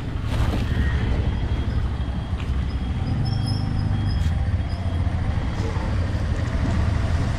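Steady low rumble of a vehicle engine running, with the pitch of an engine showing faintly about three seconds in.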